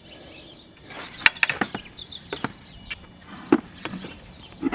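Irregular sharp clicks and light knocks, about eight over a few seconds, as the truck's removed clutch and brake pedal assembly and its metal parts are handled.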